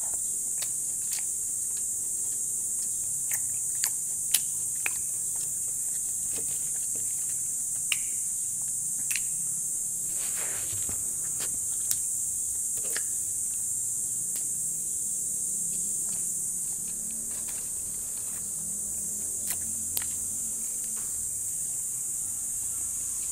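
A person eating on camera: chewing and mouth sounds with scattered short, sharp clicks and smacks, over a steady high-pitched drone.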